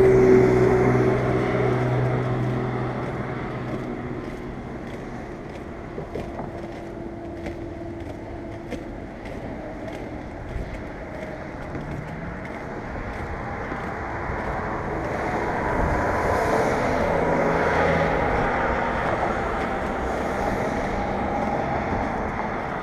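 Skateboard wheels rolling steadily on a concrete sidewalk, with a run of light, evenly spaced clicks a few seconds in. Road traffic passes alongside: a vehicle's hum fades over the first few seconds and the noise swells again later.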